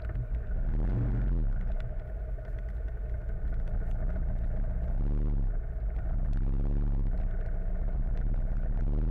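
Motorcycle engine running at low speed in stop-and-go traffic: a steady low drone whose pitch briefly rises and falls about a second in and again around five to six seconds in as it pulls forward and eases off.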